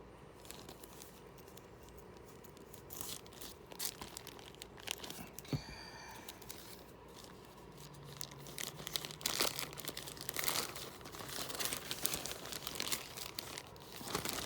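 Packaging being torn open and handled by hand: quiet at first, then about three seconds in a run of irregular crinkling and tearing noises that goes on to the end.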